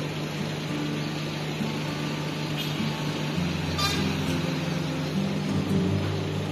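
Scania coach's diesel engine running as the bus pulls away, over a steady low hum.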